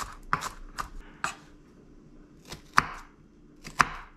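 Knife dicing an onion: about eight separate sharp chops, with a pause of over a second in the middle.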